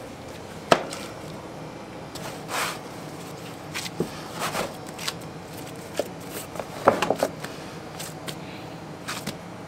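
Scattered soft knocks, scrapes and slaps of a large mass of bread dough being handled and shaped in a plastic proofing tray, with a cluster of knocks about seven seconds in, over a steady kitchen hum.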